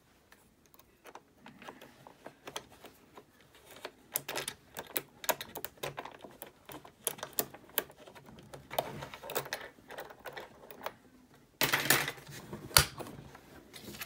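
Rapid small metallic clicks and scrapes of a pick and tension bar working the key lock of a SentrySafe fire chest. Near the end a louder rattle and a sharp click come as the lock turns and the lid is opened.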